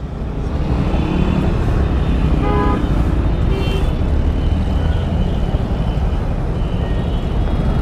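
Riding noise from a motorcycle in city traffic: a steady low engine and wind rumble. A vehicle horn honks briefly about two and a half seconds in.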